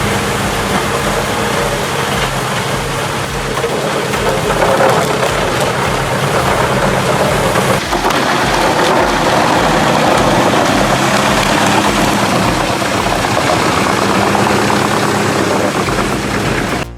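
Large industrial drum wood chipper running at full power, its heavy engine droning steadily under the dense rushing noise of wood being fed in and chipped, with a brief dip about eight seconds in.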